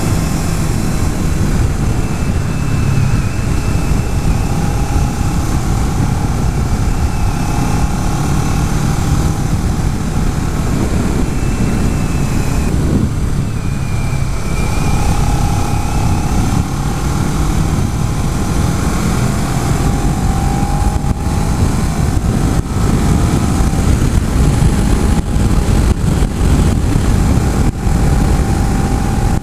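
Kawasaki Ninja 650 parallel-twin engine running on the move, its pitch rising and falling as the rider works the throttle, under heavy wind rush on the microphone.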